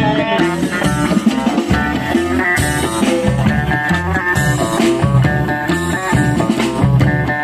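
Live band playing an instrumental passage between sung lines: hollow-body electric guitar leading over upright double bass and a drum kit, with a steady beat.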